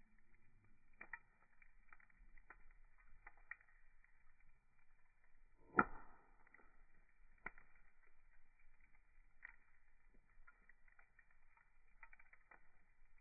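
Wood fire burning with faint, irregular crackles and one sharp, louder pop about six seconds in.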